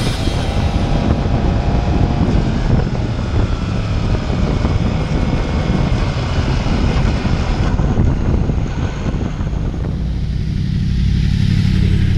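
Sport motorcycle at track speed heard from an onboard camera: the engine note rises and falls with wind rush over the microphone. About ten seconds in it gives way to a steady low engine note.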